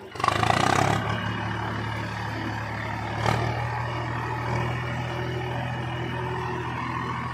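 Tractor's diesel engine running steadily as the tractor drives at low speed. A loud rush of noise comes in the first second, and there is one brief sharp sound about three seconds in.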